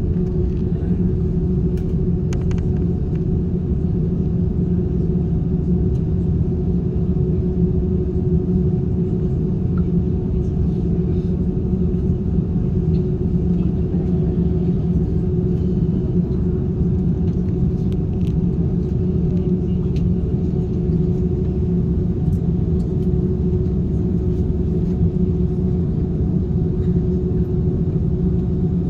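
Steady engine and air-system rumble of a jet airliner at idle on the ground, heard from inside the cabin, with a constant low hum that neither rises nor falls.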